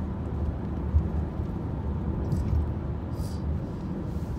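Steady low road and engine rumble inside a moving car's cabin, with a few short, faint, hissy rustles about halfway through and near the end.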